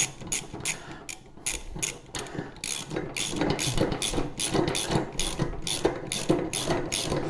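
Hand ratchet clicking in a steady rhythm, about three clicks a second with a short pause about two seconds in, as nuts are run down onto bolts.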